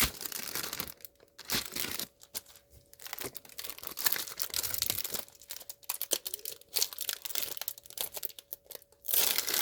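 Comic mystery bag being torn open and its wrapper crinkled by hand, in irregular crackling bursts with short pauses.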